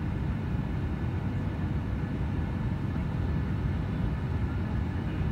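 Steady low rumble of a jet airliner's engines and airflow heard from inside the passenger cabin during the descent on approach to landing, with a faint steady whine above it.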